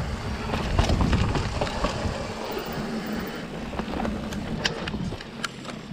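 Ibis Ripmo AF mountain bike rolling along a dirt singletrack: wind rushing over the camera microphone and the tyres on the dirt, heavier for the first two seconds. A few sharp clicks and rattles from the bike over bumps come late on.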